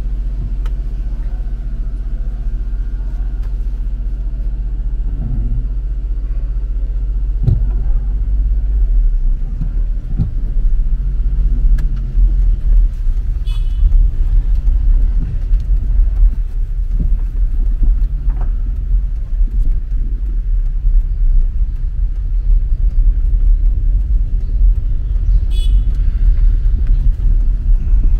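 Car engine and cabin rumble heard from inside the car: a steady low hum while standing, turning into a louder, rougher road rumble about nine seconds in as the car gets moving, with a few small clicks and knocks.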